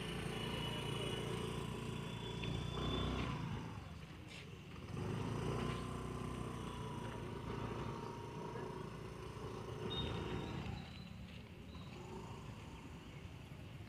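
Small motor scooter engine running at low speed, its note rising and falling as the rider throttles on and off around a tight figure-eight course.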